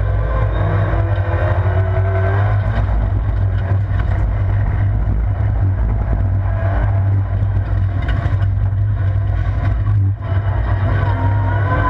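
Vauxhall Corsa rallycross car's engine heard from inside the stripped cabin, running hard under full acceleration, its note rising in pitch as it revs up. About ten seconds in, the level drops briefly before the engine climbs again.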